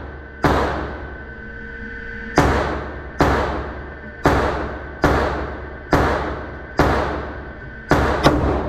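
9mm semi-automatic pistol firing nine shots at an uneven pace of about one a second, the last two in quick succession near the end. Each report echoes off the walls of an indoor range.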